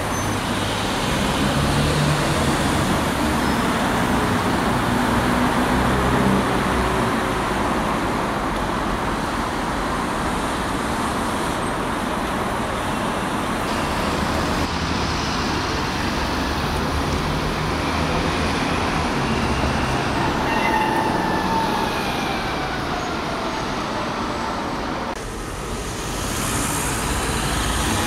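Busy city-street traffic: double-decker buses and cars driving past, with engine notes rising and falling as they pull away. The sound changes abruptly to another busy street about 25 seconds in.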